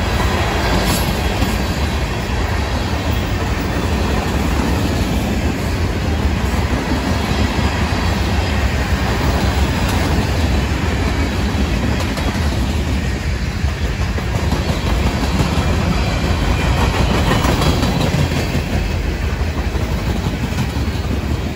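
Freight train cars rolling past, a loud, steady rumble of steel wheels on the rails.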